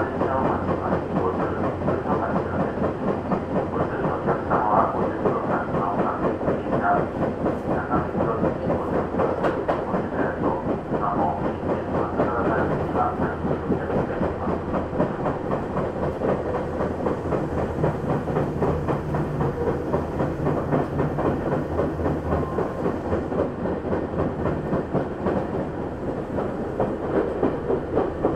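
Tokyu 8500 series electric train running along the line: a steady running noise with wheels clattering rhythmically over the rail joints.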